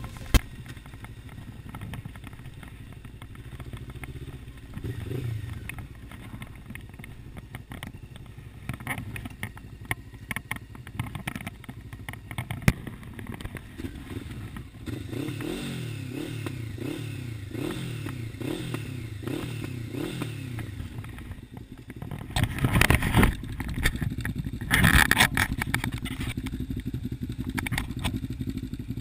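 Honda CBF500's parallel-twin engine running on the road. Its pitch then goes up and down in a repeating pattern as the bike slows and manoeuvres, and two loud bursts of noise come about two-thirds of the way through.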